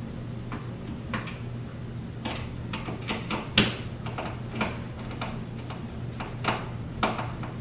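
Hand screwdriver tightening a screw through a metal light-fixture mounting strap into a ceiling electrical box until snug: irregular clicks and scrapes of the tip turning in the screw head and the strap shifting, a dozen or so, the sharpest about three and a half seconds in and again near the end.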